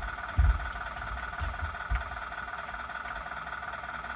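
Simulated diesel engine idling, played steadily through the small speaker of a budget RC sound module in a model wheel loader. A few dull low thumps come in the first two seconds.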